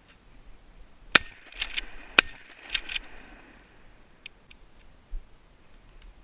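Two shots from a 20-gauge Mossberg 500 pump-action shotgun about a second apart, each followed by a quick double clack of the pump being racked to chamber the next shell.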